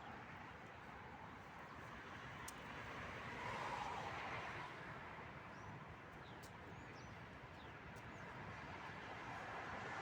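Faint steady outdoor background noise that swells briefly near the middle, with a few small high chirps, like birds, in the second half.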